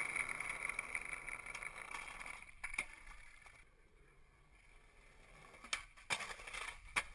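Skateboard wheels rolling over brick pavement with a rough rumble that fades after about two and a half seconds, then sharp clacks of the board: the tail popping and the board landing, four in all over the following seconds.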